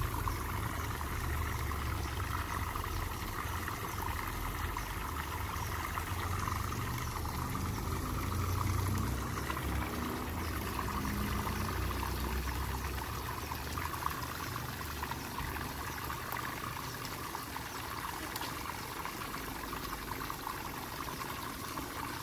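Water spraying steadily down into a shallow inflatable kiddie pool: a continuous patter and trickle on the water's surface, with a low rumble underneath.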